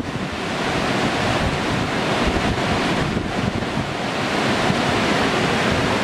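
Rushing whitewater of a big river standing wave: a steady, dense wash of churning water, with wind buffeting the microphone.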